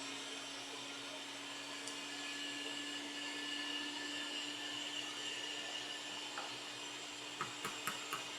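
Hot air rework station's blower running steadily, a soft rushing hiss with a faint hum and a higher whine. A few light clicks near the end.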